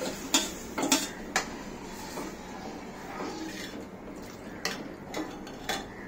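A steel ladle and a steel bowl clinking against a stainless steel pan as buttermilk is poured in and stirred: three sharp clinks in the first second and a half, three more near the end.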